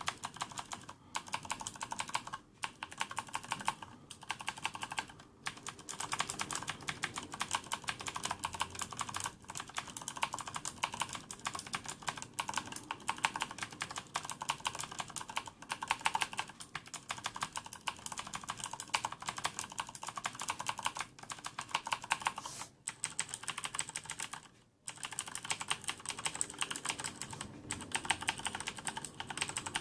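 Fast, continuous typing on a Corsair K70 mechanical keyboard with Cherry MX Blue switches and no O-rings: a dense run of sharp clicky keystrokes with keycaps bottoming out, broken by a few short pauses, the longest about three quarters of the way through.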